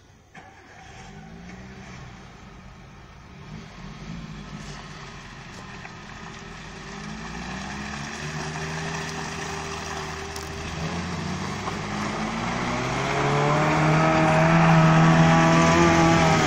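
Off-road 4x4 SUV engine revving up and down under load as it pulls up a muddy slope, growing steadily louder as it approaches. The revs are held high and steady near the end.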